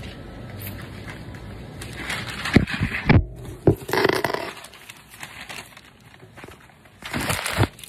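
Handling noise from a phone being gripped and moved: fingers rubbing and scraping over its microphone, with a few sharp knocks, three of them in about a second near the middle and one more near the end.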